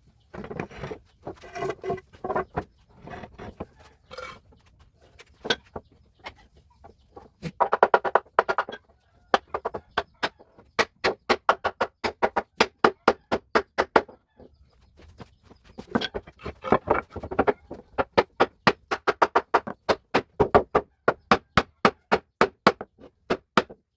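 Hammer knocking wedges into a traditional wooden board press: a run of sharp knocks, a few a second, that stops and starts again several times.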